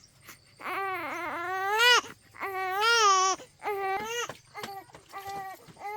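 Infant crying: two long wails in the first half, then a run of shorter, choppier cries.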